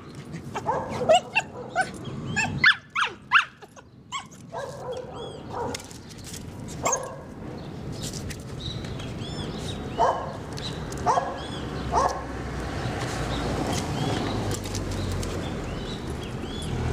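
Dogs yipping, whining and barking at each other through a gate in short, irregular calls, densest in the first few seconds, with three sharp barks about ten to twelve seconds in. A low rumble builds near the end.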